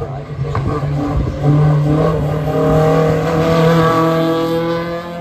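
A hillclimb race car's engine, a blue hatchback, running at high revs as it drives past close by. The note is loudest and steady from about a second and a half in.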